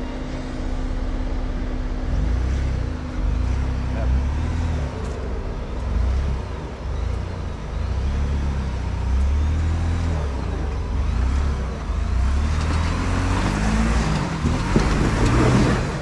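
Ford Bronco engine working in low gear as the truck crawls up a rocky ledge, its revs rising and falling in pulses. Tyres grind and scrabble over rock and dirt, getting louder near the end as it pulls up close.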